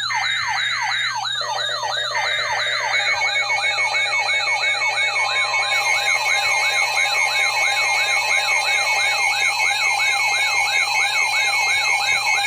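Electronic alert siren: a fast, repeating downward-sweeping wail, about three sweeps a second, joined by steady beeping alert tones about a second and a half in. Part of an emergency alert for a severe weather warning.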